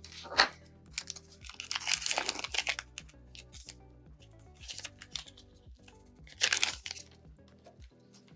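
Foil booster-pack wrapper crinkling and tearing in several bursts, the longest about two seconds in and another near the end, over soft background music.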